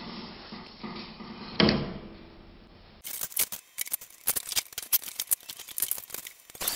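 Thin cut-out plywood letters being handled: one sharp wooden knock about a second and a half in, then a run of quick, irregular clicks and taps.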